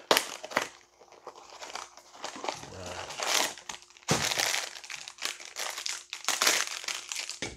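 Foil blind bag of a Funko mystery mini crinkling and tearing as it is handled and ripped open by hand, irregular rustles that get louder from about four seconds in.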